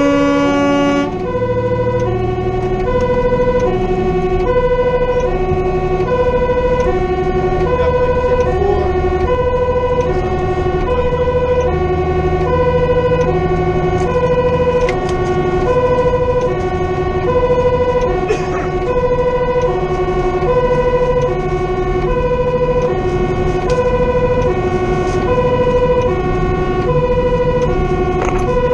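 Fire engine's two-tone siren alternating evenly between a high and a low note, about once a second, heard from inside the cab over the truck's engine. An air-horn blast cuts off about a second in.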